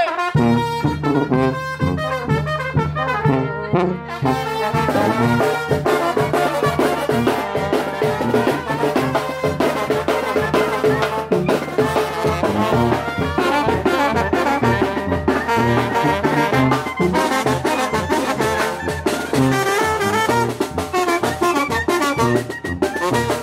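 Brass band playing chinelo dance music: trumpets and trombones over a repeating bass line, with drum strokes keeping a steady beat.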